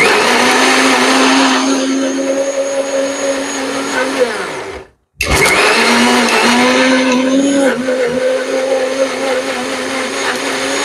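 Electric mixer grinder with a stainless-steel jar running at full speed. It runs for about four seconds, winds down with a falling whine, and stops briefly. About five seconds in it starts again and keeps running.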